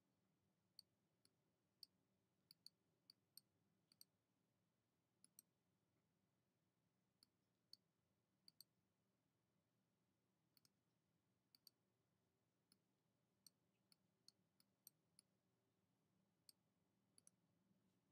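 Faint, sharp clicks of a computer mouse button at irregular intervals, some in quick pairs, over a faint low hum.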